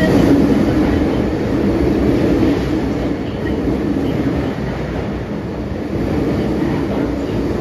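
MTR M-train electric multiple unit pulling into the platform and running past close by, with a steady rumble of wheels and running gear. It is loudest in the first couple of seconds and eases off a little after.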